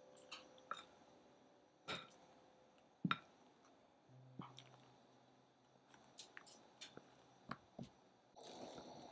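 Spatula folding whipped cream into a thick, creamy cheesecake filling in a glass bowl: faint soft wet squelches and scattered light clicks of the spatula against the glass, the sharpest about three seconds in.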